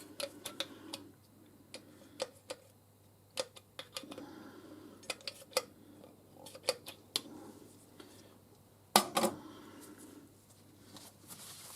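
Irregular small metallic clicks and taps from hand work on a Warco lathe's tool slide as it is wound back and forth and oiled, with a louder clatter about nine seconds in.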